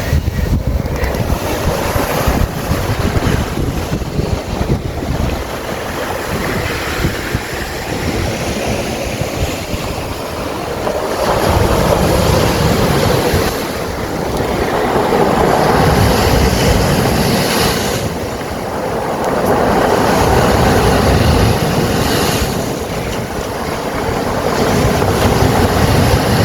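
Waves washing in and out over a stony beach, the surf swelling and ebbing every few seconds, with stones rumbling as the water pushes them up the shore and drags them back. Wind buffets the microphone.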